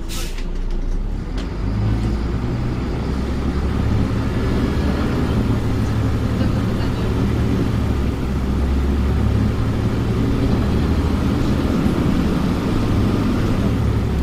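Scania OmniCity city bus's diesel engine idling as the bus stands, a steady low rumble that grows a little louder about two seconds in. A brief hiss right at the start.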